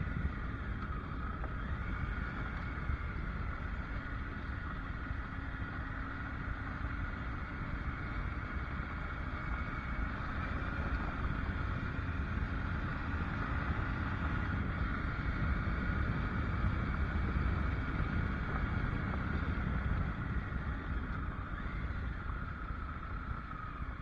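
Triumph Tiger motorcycle running steadily at low speed on a gravel road, with wind rushing over the microphone and the tyres rolling on gravel. It eases off slightly near the end as the bike slows for a bend.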